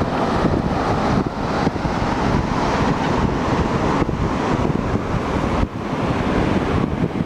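Wind blowing across the microphone as a steady rushing noise over the surf of the ocean, dipping briefly now and then.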